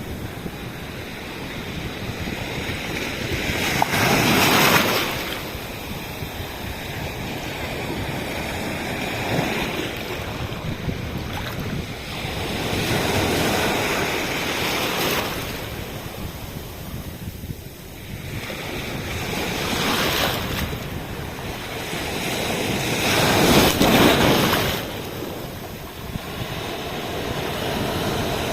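Sea waves breaking on a sandy beach, a steady wash that surges every few seconds, with the loudest breakers about four seconds in and again near the end.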